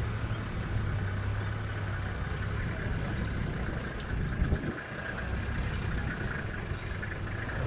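Safari vehicle's engine idling steadily, with a brief low thump about halfway through.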